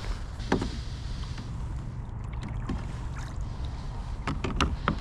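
Small fishing kayak afloat: a steady low rumble of wind and water, with one brief knock about half a second in and a few light clicks of gear being handled near the end.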